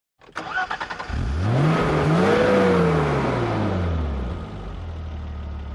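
Car engine cranked by its starter for about a second, catching, revving up once and dropping back to a steady idle, then cut off abruptly.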